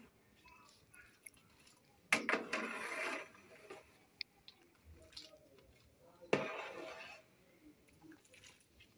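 Thick soup in a large aluminium pot being stirred with a long metal ladle: twice the soup slops and splashes, each splash fading over about a second, with a few light clicks of the ladle in between.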